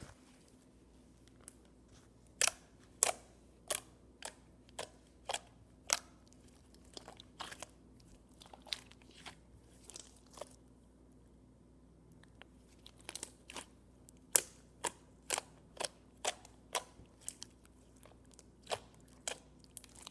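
Thick pale green slime being kneaded and pressed by hand, giving sharp clicks and pops, about one to two a second, with a few seconds' pause near the middle.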